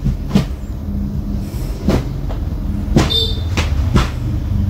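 Silver-plated Zippo lighter's hinged lid clicking open and snapping shut, about five sharp metallic clicks, one near the three-second mark ringing briefly and brightly. A steady low hum runs underneath.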